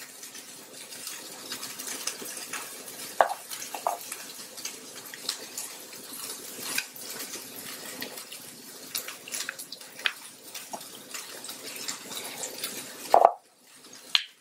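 Lime juice being squeezed with a handheld metal lever citrus press into a bowl of sauce: juice trickling and dripping into the bowl, with scattered small clicks from the press. This runs over a steady hiss. A louder knock comes near the end.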